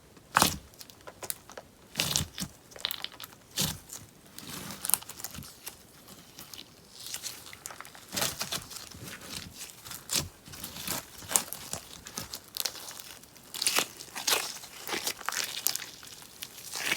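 Beeswax sponge slime being worked, crackling and popping in irregular crunchy snaps, a few of them louder and sharper than the rest.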